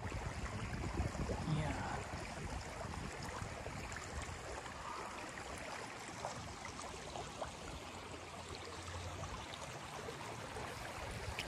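Steady rush of flowing water, like a small stream running.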